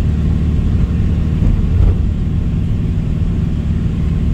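Vehicle engine running steadily, a loud, even low rumble with no change in pitch.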